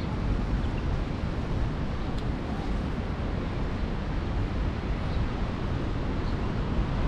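Steady wash of ocean surf mixed with wind buffeting the microphone, a low rumbling flutter underneath.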